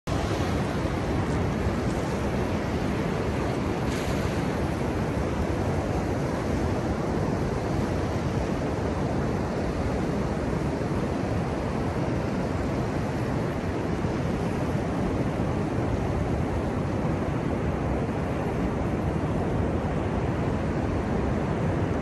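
Ocean surf breaking on a beach: a steady wash of noise, with no single wave crash standing out.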